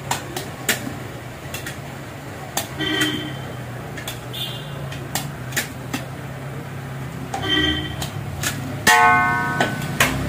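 A metal ladle clinks and scrapes against large aluminium cooking pots as cooked rice is scooped from one pot into another. About nine seconds in there is a loud ringing metal clang, under a steady low hum.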